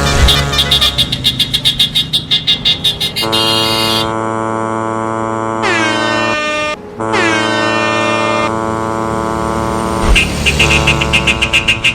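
Truck air horns honking. A quick stutter of short honks, about five a second, runs for the first three seconds and comes back near the end. Long held blasts fill the middle, two of which slide down in pitch.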